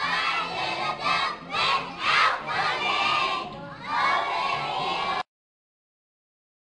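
A group of young children shouting together loudly, their many voices rising and falling. The sound cuts off suddenly about five seconds in, leaving dead silence.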